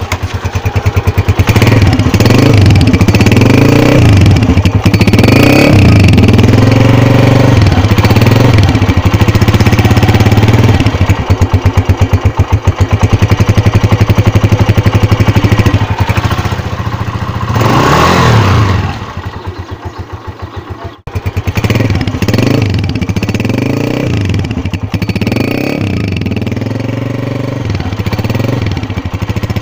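Atlas Honda CG 125's single-cylinder four-stroke engine being revved in repeated short blips, the revs rising and falling again and again. About seventeen seconds in it is taken up to a higher rev, drops back, and then runs on with more blips.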